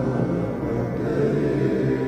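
Dark, droning music: a cluster of low tones held steadily, with no clear beat.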